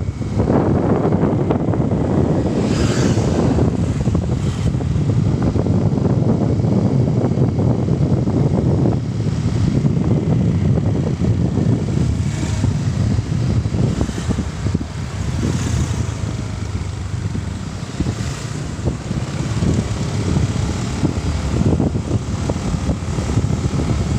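Moving vehicle: a steady low rumble whose loudness rises and falls.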